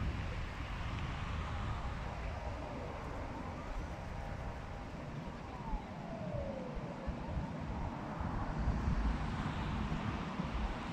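A faint emergency-vehicle siren wailing up and down over a steady low rumble of traffic and wind.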